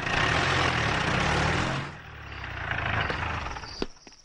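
A motor vehicle's engine running as it passes, a loud rushing noise over a low drone that fades about halfway through and swells again before dying away. A single sharp knock comes near the end.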